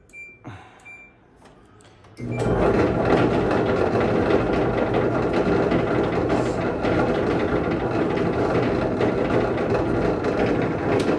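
Kenmore Elite clothes dryer: a few short control-panel beeps, then about two seconds in the dryer starts and runs with a loud, steady mechanical noise over a low hum. This is the abnormal noise the dryer makes while it still heats normally.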